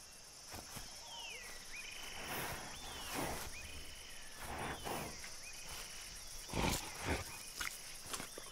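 Forest ambience: a steady high insect drone, a bird repeatedly whistling short falling notes, and scattered rustles and soft thumps, the loudest about two-thirds of the way through.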